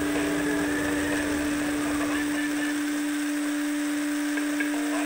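Electric RC car heard from its onboard camera: a steady, unchanging electric hum runs throughout. Under it a low tyre rumble on asphalt drops away about two seconds in.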